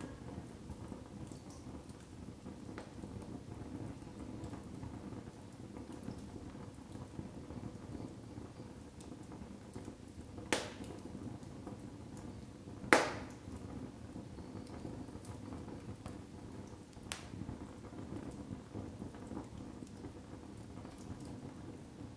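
Split firewood logs burning in a fireplace: a steady low rush of flames with scattered faint crackles, and two sharp pops from the wood about halfway through, the second the loudest, with a smaller pop a few seconds later.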